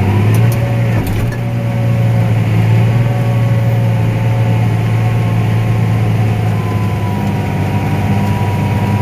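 Diesel engine of a harvest machine running steadily under load, heard from inside the cab. It is a deep, even drone that steps up slightly at the start, with a faint steady whine above it.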